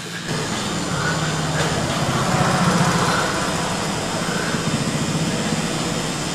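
Recorded wing-flapping sound effect played over the theatre's speakers: a steady, engine-like fluttering whirr that sets in within the first half-second and holds.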